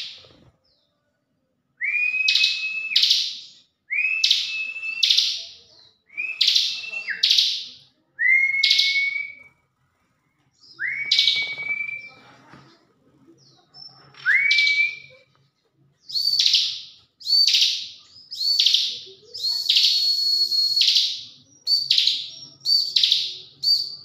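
A bar-winged prinia (ciblek) calling over and over, about a dozen loud chirping phrases, each a short held whistle that snaps upward. About halfway through, the phrases come quicker and start higher.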